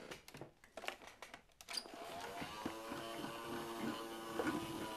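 Handheld cordless vacuum cleaner handled with a few knocks and clicks, then switched on about two seconds in: its motor rises to speed and runs steadily.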